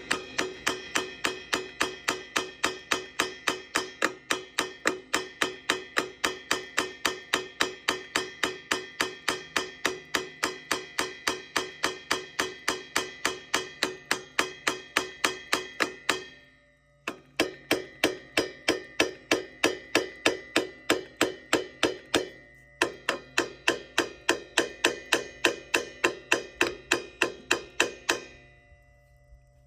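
Rapid, even tapping on a Farmall A's carburetor, about three taps a second with a short ring to each, broken off briefly twice and stopping near the end. The tapping is meant to free a float needle that the owner suspects is sticking closed and choking the fuel flow.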